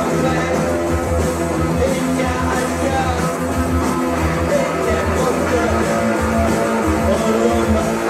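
Loud rock music with electric guitar, singing and a heavy steady beat, played over the runway sound system.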